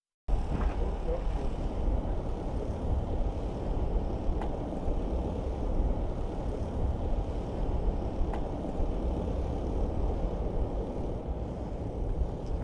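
A steady, low, unpitched rumbling noise that cuts in abruptly just after the start, with a few faint ticks over it.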